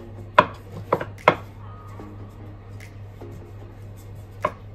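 Rolling pin knocking on a board while dough is rolled out thin, with three sharp knocks in the first second and a half and one more near the end.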